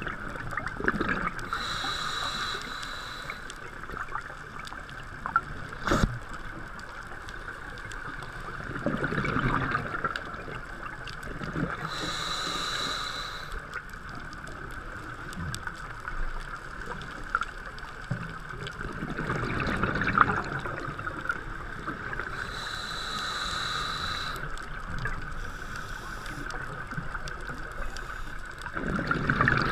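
Scuba diver breathing through a regulator underwater: bursts of exhaled bubbles about every ten seconds, each followed by a hissing inhalation with a thin whistle. A steady hiss runs underneath, and there is one sharp knock about six seconds in.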